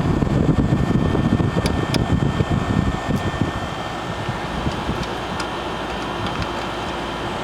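1996 Whirlpool Coolerator 7,000 BTU window air conditioner running, its fan blowing steadily, heavier for the first few seconds, then evening out. A few light clicks as the plastic front grille is handled and taken off.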